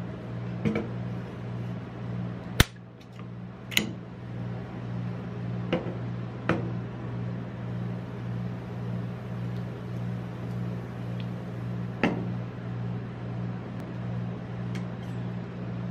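Steady low hum from the ice-cream-roll machine's cold plate, with a few sharp clicks and knocks as an aluminium soda can is handled against the steel plate, the loudest a single sharp snap a few seconds in.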